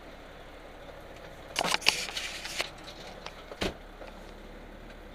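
A brief burst of clattering about one and a half seconds in, then a single sharp knock about two seconds later, over a steady low hum.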